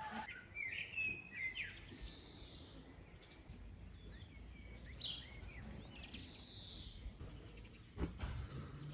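Songbirds calling in short chirps and gliding notes over faint outdoor background noise, with a few soft knocks near the end.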